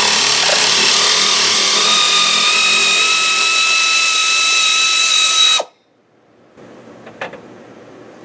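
Air-powered wrench running a bolt out: a loud, steady air hiss with a whine that rises slightly in pitch, then cuts off suddenly about five and a half seconds in. A faint click comes near the end.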